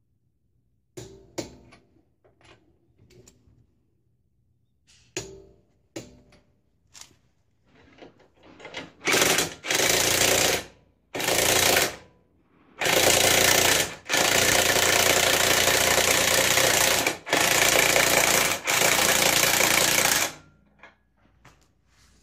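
Corded electric impact wrench driving the screw of a car's scissor jack through a jack-helper adapter to raise the car. It runs in about seven loud, rattling bursts of one to three seconds with short pauses between, after several seconds of scattered clicks and knocks as the tool is handled.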